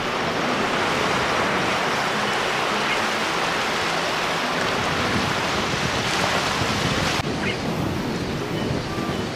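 Small waves washing in over the sand at the shoreline, a steady hiss of surf.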